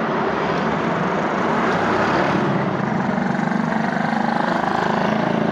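Motor vehicle engine running steadily with traffic noise from the road, swelling briefly about two seconds in.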